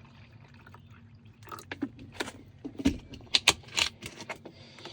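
A run of sharp clicks and knocks from handling a drip coffee machine just after its water reservoir is filled, with a low steady hum underneath.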